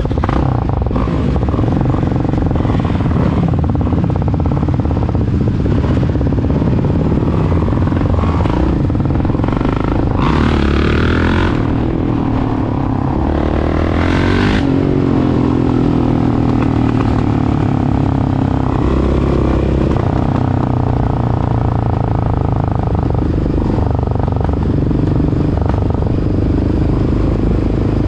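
Yamaha Raptor 700R quad and dirt-bike engines running under way, rising and falling in pitch as they rev, with the biggest sweep in pitch around the middle.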